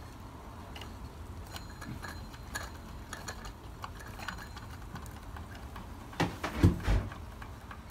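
Irregular light clicks and ticks from a Wilesco D305 toy steam fire engine's engine being turned over by hand at its flywheel as it is brought up to starting on steam. About six seconds in come a few heavier low thumps.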